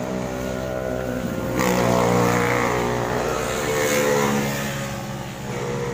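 A motor vehicle's engine passing by on the road. It swells louder about a second and a half in and eases off about four and a half seconds in.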